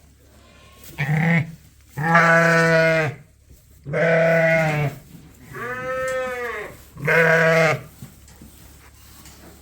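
Sheep bleating: five separate calls, with one higher, arching call about six seconds in.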